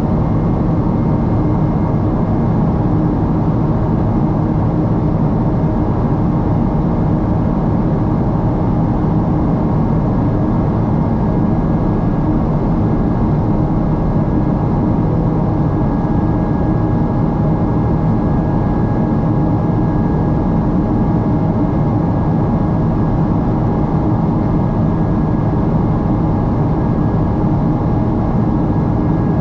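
Jet airliner cabin noise from a Boeing 777-300ER with GE90 engines: a steady, loud rush of engine and airflow noise with a few faint steady hums, the engines running at a constant setting in flight.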